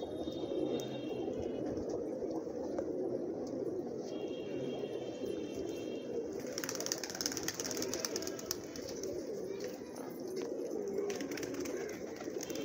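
A flock of domestic pigeons cooing together in a continuous low murmur. A flurry of wing flaps comes about halfway through.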